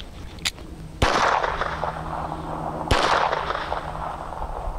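Two shots from a Phoenix Arms HP25 .25 ACP pistol, about two seconds apart, each trailing off in a long echo.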